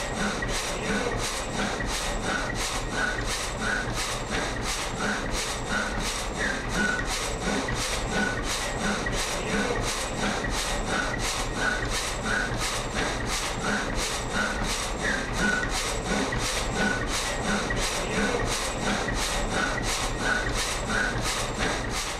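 Wind-driven sawmill machinery running steadily with a regular mechanical rhythm of about two strokes a second.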